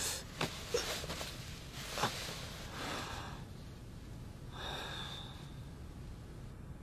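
A man's short, sharp breaths and gasps, a few in the first three seconds and one more about five seconds in, with light rustling of clothing.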